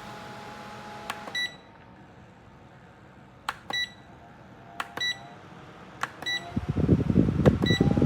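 Rechargeable camping fan being worked by its button: five clicks, each answered by a short electronic beep. The fan's steady hum stops after the first press. Near the end, loud fluttering airflow from the fan buffets the microphone as it runs at a strong setting.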